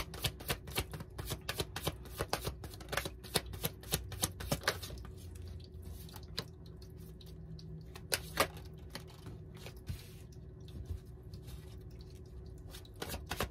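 A deck of tarot cards shuffled by hand: a quick run of card clicks and flicks that thins to a few single snaps about five seconds in, then picks up again near the end.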